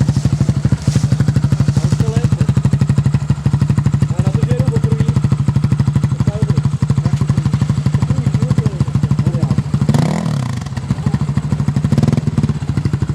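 Sport ATV engine idling steadily close by, a fast even pulsing throb, with a brief dip and recovery in pitch about ten seconds in.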